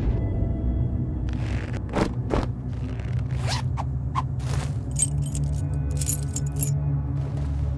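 A low, steady drone with a string of short sound effects over it: zips being pulled, scrapes, and metal chains and jewellery jangling.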